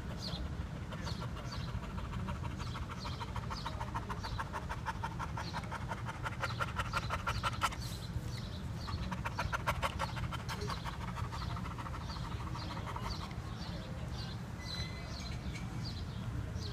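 Shar-pei-type dog panting with rapid, even breaths, heaviest in the middle and easing off after about 13 seconds.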